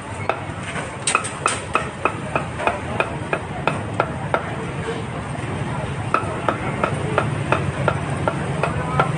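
A metal cooking utensil striking a pan, clanking with a short ring about three to four times a second; it pauses for a moment near the middle, then goes on. A steady low hum runs beneath.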